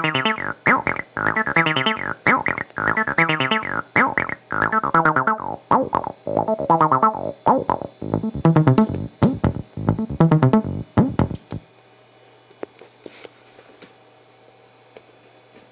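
x0xb0x, a TB-303 clone bass synthesizer, playing a sequenced acid bassline: a steady rhythm of short notes, with the resonant filter sweeping the tone brighter and darker. It stops about eleven and a half seconds in, leaving a low mains hum and a few faint clicks.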